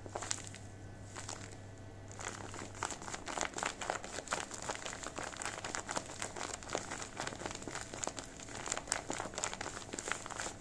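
Paper crinkling and crackling as it is handled and folded, in irregular bursts that thicken after a sparser first two seconds. A faint low hum stops about three seconds in.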